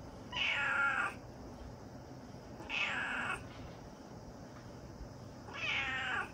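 Domestic cat meowing three times, each call under a second long and a couple of seconds apart.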